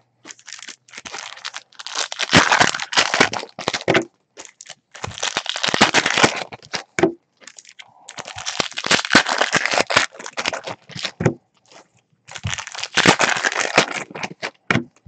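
Bowman Chrome trading-card packs being torn open, their foil wrappers crinkling and crackling in four bursts with short pauses between.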